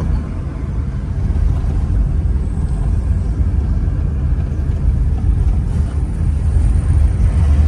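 Steady low rumble of a car driving on an asphalt road, heard from inside the cabin: engine and tyre noise.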